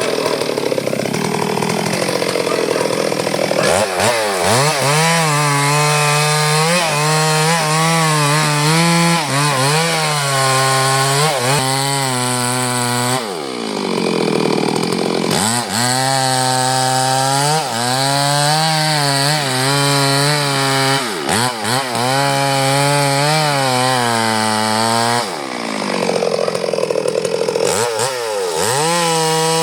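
Chainsaw cutting durian wood: the engine runs at a lower, wavering pitch while the chain is in the wood and revs up sharply three times between cuts.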